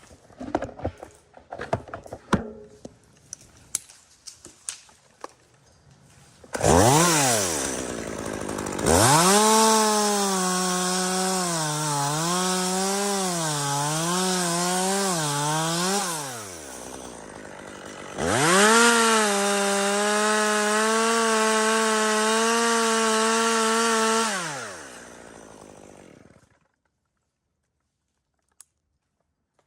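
Scattered clicks and knocks, then a two-stroke chainsaw revs up about six seconds in and cuts, its pitch dipping again and again under load. It drops back briefly, runs at a steady high rev for several seconds, then winds down and stops.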